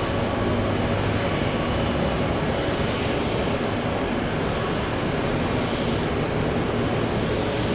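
Jet airliner engine noise: a steady rush with faint steady tones over it, holding level throughout.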